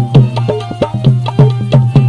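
Instrumental passage of live South Asian folk music: hand drums in the tabla/dholak family playing a quick, even beat, the bass strokes bending down in pitch, over a steady held low note.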